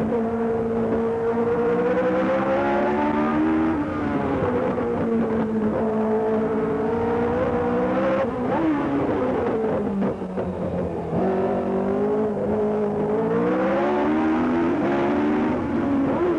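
Formula 1 racing car engine heard close, at full speed on a street circuit: its pitch climbs steadily, then drops back sharply as it changes gear or lifts for a corner, several times over.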